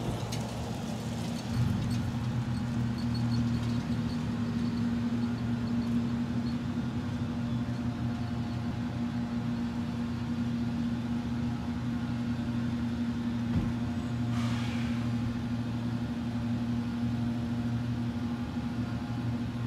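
International 4300 truck's diesel engine idling steadily just after start-up, a low, even drone that steps up slightly in level about a second and a half in. A brief falling hiss comes about fourteen seconds in.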